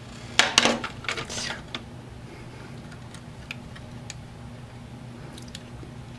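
Small metal nuts and a small metal tool clinking and clattering against the tabletop, with a few quick bursts of clicks in the first two seconds, then only occasional faint ticks as the nuts are started by hand. A steady low hum runs underneath.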